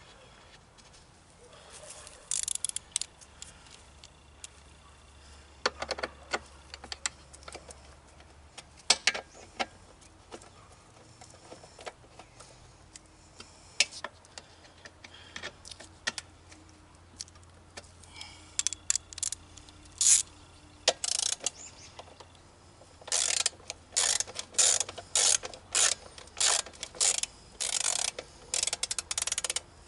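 Hand ratchet clicking in short bursts as fasteners are tightened into the mower's underside. The bursts are scattered at first, then come in a quick run of about ten strokes near the end.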